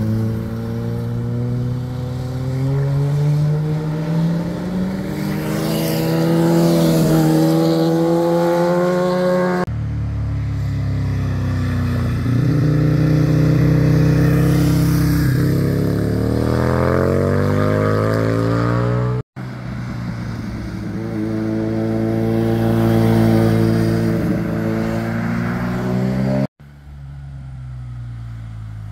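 Motorcycle engines accelerating through a hairpin bend and riding past one after another, pitch climbing as they pull away and then falling. The sound breaks off abruptly three times as one pass is cut to the next.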